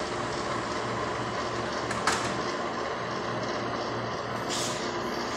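Koppel window-type air conditioner running steadily, now working again after repair: an even rush of air from its fan over a low hum. A single sharp click about two seconds in.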